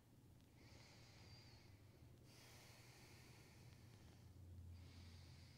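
Near silence with faint, slow breathing in and out, a soft breath every second or two, over a low steady room hum.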